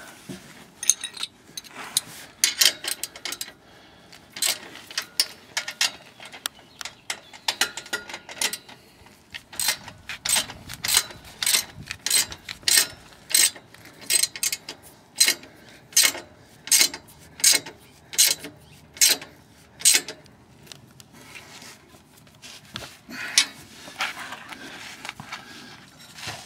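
Hand ratchet clicking in repeated strokes, about two a second, as the exhaust flange bolts are tightened down. The clicking stops about 20 seconds in, with a few more strokes a few seconds later.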